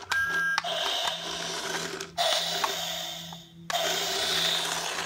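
The small electric motor and plastic gears of a remote-control Thomas the Tank Engine toy whirring steadily as it drives, with two short pauses in the middle.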